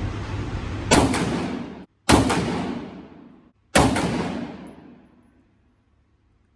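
Three shots from a Springfield Saint AR pistol with a 7.5-inch barrel, fired a second or more apart, each sharp crack trailing off in a long echoing decay.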